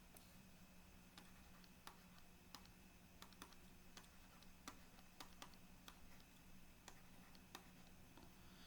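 Near silence: a faint steady low hum with a dozen or so soft, irregularly spaced clicks.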